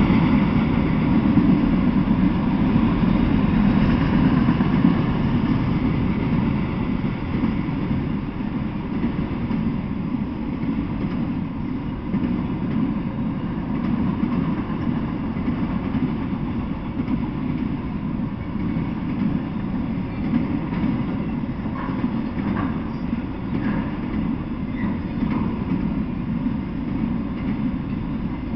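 Freight train of autorack cars rolling past, a steady rumble of steel wheels on the rails. A few faint brief squeaks come through about three-quarters of the way in.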